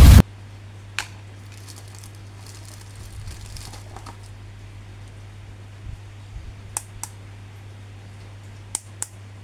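A loud music clip cuts off just at the start. Then a plastic action figure and its packaging are handled: a single sharp click, later two pairs of clicks, and faint crinkling, over a steady low hum.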